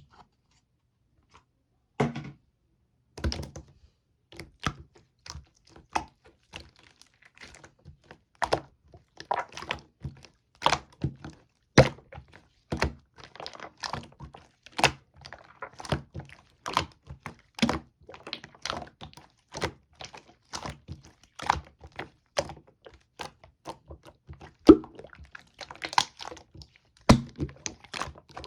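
Slime being pressed and squeezed by hand, giving sharp pops and clicks at about one or two a second, starting about two seconds in.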